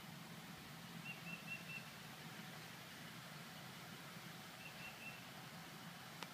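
A bird calling: two short runs of three or four high chirps, a few seconds apart, over a faint steady low hum, with a single click near the end.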